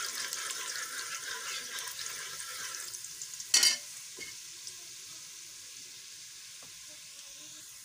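Hot oil sizzling and crackling in a pressure cooker as whole dried red chilies fry with garlic cloves and a bay leaf for a tadka. One sharp knock comes about three and a half seconds in, and after it the sizzle carries on fainter and steady.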